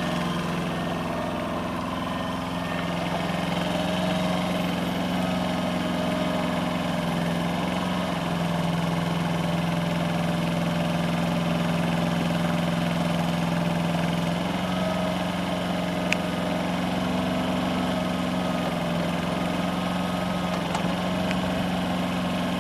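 Kobelco SK007-3 micro excavator engine running steadily while the machine swings and moves its arm; its note shifts slightly a couple of times as the hydraulics are worked. A single short click about two-thirds of the way through.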